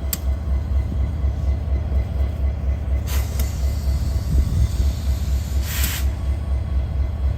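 Metra EMD F40PH diesel locomotive idling while parked, a steady low pulsing rumble. Two short hisses come about three and six seconds in.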